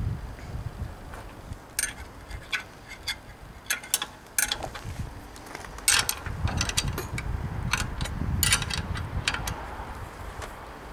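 Wrenches and other hand tools clinking and clicking irregularly against metal engine parts, with low knocks and handling noises in between.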